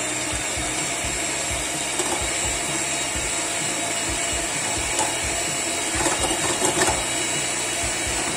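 Electric hand mixer running steadily at medium-high speed, its wire beaters whipping raw eggs to a froth in a glass bowl.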